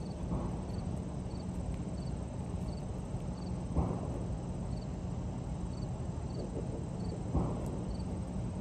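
Outdoor background noise: a steady low rumble with faint, high-pitched chirps repeating about twice a second. Two soft thumps come about four and seven seconds in.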